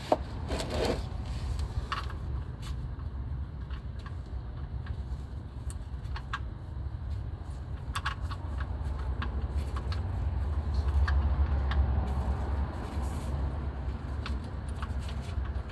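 Scattered small metallic clicks and clinks as the oil drain plug, with its new washer, is threaded back in and tightened, over a steady low rumble that swells a little toward the middle of the second half.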